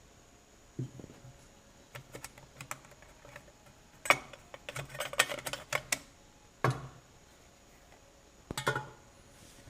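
Clicks, knocks and a run of rattling clatter from hands working on an old McCulloch chainsaw. The noises come in short clusters, with the busiest stretch in the middle and a sharp knock soon after.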